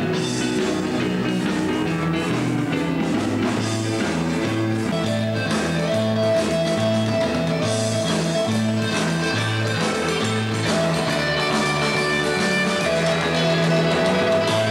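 Live band playing rock and roll with guitar, over a bass line that steps from note to note about twice a second.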